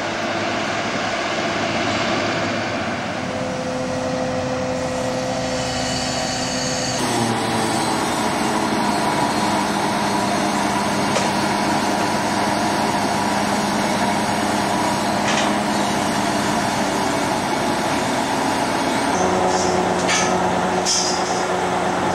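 Loud, steady machinery noise with a low hum, changing abruptly about seven seconds in and again near the end, with a few brief knocks near the end.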